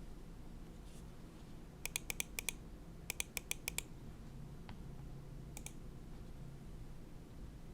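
Neo65 mechanical keyboard with lubed Cherry MX2A Black linear switches on a carbon fibre plate and GMK keycaps, typed in two quick runs of about six keystrokes each, about two and three seconds in, then a couple of single presses. A faint steady low hum runs underneath.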